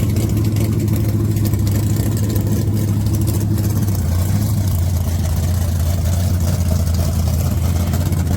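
Turbocharged Honda B18 four-cylinder of a front-wheel-drive Civic drag car running steadily at a fast idle, dropping slightly in pitch about four seconds in.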